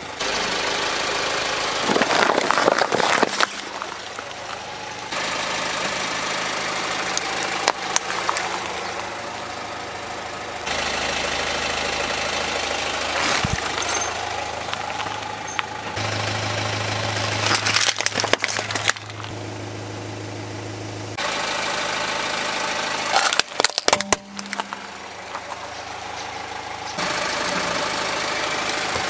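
A car creeping forward with its engine running at low speed while its tyre rolls over small plastic toys, with a cluster of cracks and crunches as each toy is crushed. The sequence repeats several times, with a different toy each time.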